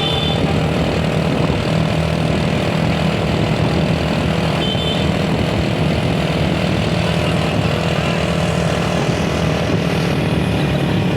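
Steady low drone of a vehicle engine with road noise.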